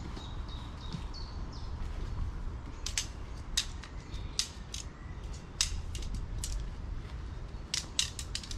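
Tent poles being broken down into their sections and put on a pile: a series of sharp clicks and clacks, scattered at first and coming thicker near the end. A few faint bird chirps in the first second or so.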